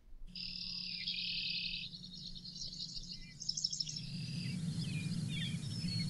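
Field recording of grassland songbirds singing and chirping in a prairie strip, several birds at once. A long buzzy trill fills the first couple of seconds, then short chirps and trills follow over a low steady hum.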